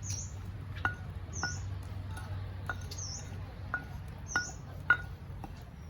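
A bird repeats a short, high, dipping call about every second and a half. Sharp ticks are scattered between the calls, over a low steady hum.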